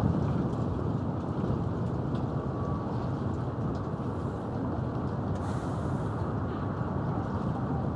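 Wind buffeting the microphone: a steady low rumbling noise.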